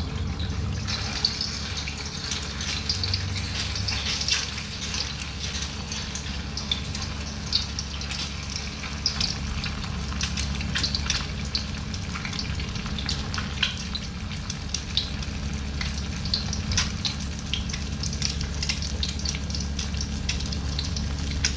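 Egg frying in hot oil in a pan, sizzling and crackling with frequent small pops, over a steady low hum. The sizzling comes in about a second in.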